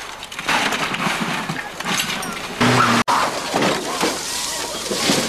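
Rally car crashing off the road into roadside bushes, with breaking and crunching noise. After an abrupt cut about three seconds in, there is vehicle noise as another rally car leaves the road.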